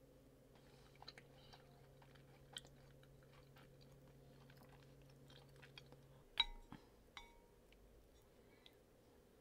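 Faint chewing and small crackly mouth and spoon sounds of eating congee with fried dough sticks. About six seconds in, a soup spoon clinks sharply against the ceramic bowl with a brief ring, and a lighter clink follows.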